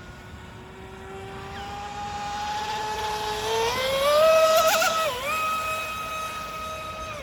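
Electric RC boat with a TP 4050 2310kv brushless motor on 6S, its high-pitched motor whine climbing in pitch as it speeds up. It is loudest about four seconds in, with a hiss of water spray. The pitch dips briefly, then holds a steady high whine before falling away at the end.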